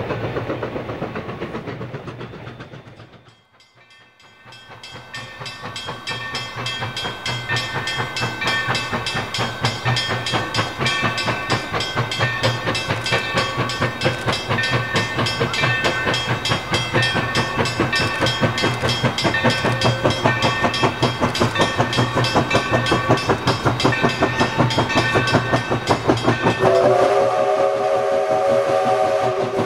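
A grade-crossing bell ringing in quick, even strokes over the working of an approaching 2-8-2 Mikado steam locomotive, after a brief fade near the start. About 26 seconds in, the locomotive's steam whistle sounds a long chord of several notes.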